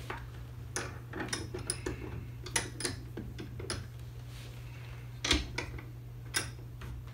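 Scattered clicks and knocks of hard parts being handled as a rifle upper receiver is set into a bench vise's receiver block; the loudest knock comes a little past five seconds in, with another about a second later.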